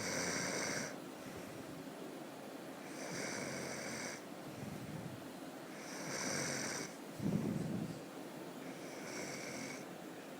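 A sleeping person snoring: four rasping snores about every three seconds, with a short, louder, low snort just after the third.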